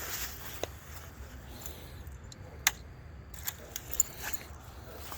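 A few short, sharp clicks and light rattles at irregular intervals, the loudest near the middle and about four seconds in, over a low steady hum.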